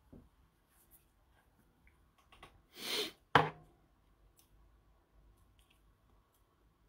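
Light handling sounds: a few faint clicks, then a short rustle about three seconds in, ending in one sharp snap that is the loudest sound.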